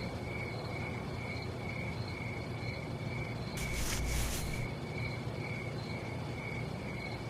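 Night-time cricket ambience: a single cricket-like chirp pulsing evenly at about two a second, over a low steady hum. About four seconds in, a brief soft rush of noise lasts about a second.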